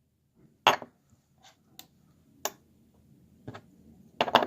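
Metal herb grinder being handled, its parts clicking and knocking together in scattered taps, with a quick run of knocks near the end.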